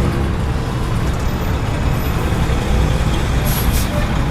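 Road traffic running past, a steady low rumble of engines and tyres, with a short hiss about three and a half seconds in.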